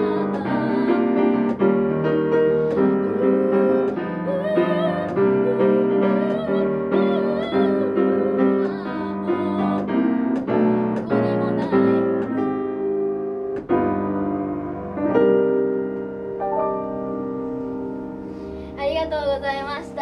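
Acoustic grand piano playing the closing bars of a slow ballad, with a girl's voice singing the last lines over it in the first half. The piano ends on a long held chord about fifteen seconds in.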